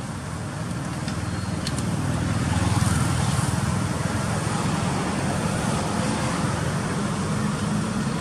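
Road traffic noise: a steady engine rumble that grows louder over the first three seconds and then holds.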